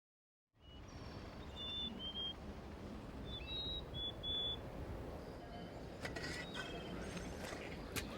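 Outdoor ambience recording that starts after a brief silence: a steady low rumble with small birds chirping in short high notes, and a denser scatter of clicks and chirps from about six seconds in.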